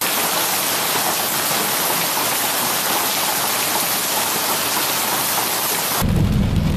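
Heavy rain pouring and splashing onto wet pavement, a steady hiss. About six seconds in it cuts to the low rumble heard inside a car driving on a rain-soaked road.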